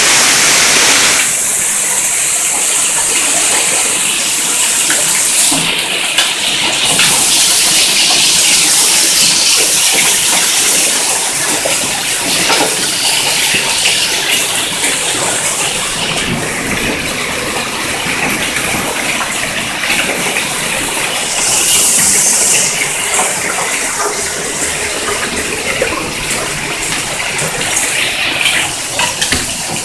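Heavy hail falling, a dense, steady hiss made of countless small impacts.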